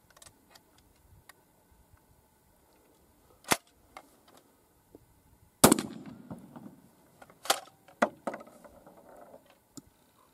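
A single shot from a 12-gauge reverse-cycle shotgun about five and a half seconds in, the loudest sound, with a boom trailing after it. One sharp metallic clack of the gun's action comes before it, three quick clacks come about two seconds after it, and faint handling clicks are scattered through.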